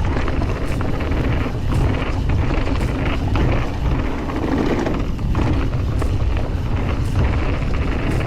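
Wind rumbling on a bike-mounted action camera's microphone as an enduro mountain bike is ridden down a trail, with scattered clicks and knocks from the bike over the ground.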